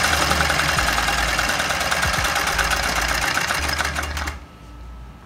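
Homemade Stirling engine built on a 100cc dirt bike cylinder and piston, running with a fast, even mechanical clatter. It cuts off abruptly about four seconds in.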